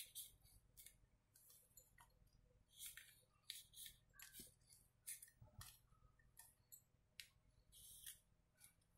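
Faint, irregular scratchy strokes of a kitchen knife sawing the crusts off a slice of white bread.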